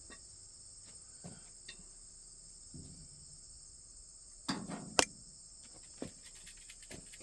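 Crickets chirping steadily in the background. About halfway through come a couple of sharp metal clinks, then lighter ticks, from the worn combine sprockets and chain being handled.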